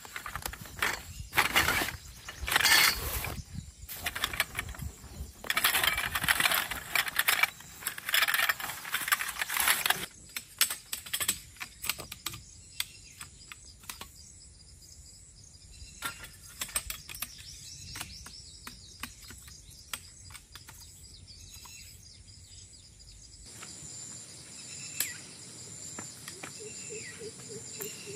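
A tarp being handled and shaken out: loud rustling and crumpling for about ten seconds, then scattered clicks and knocks as the gear is worked. After a cut near the end, forest ambience takes over, with insects droning and a few short bird calls.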